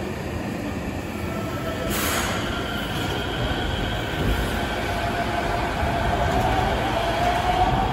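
Busan–Gimhae Light Rail train running at the platform, its steel wheels squealing in several drawn-out tones that slowly glide up and down over a steady rumble. It grows a little louder toward the end.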